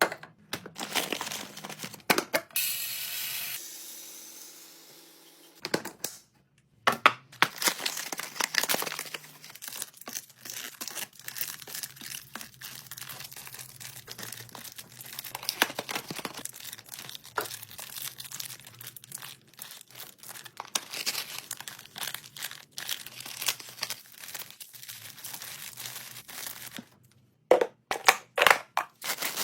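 Packaging crinkling and tearing as groceries are unpacked and restocked, with many short clicks and knocks of items being handled and set down.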